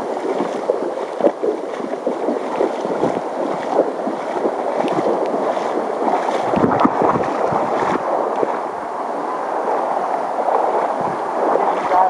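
Shallow river current rushing and gurgling over rocks, with uneven splashing where it breaks around a wading angler's legs.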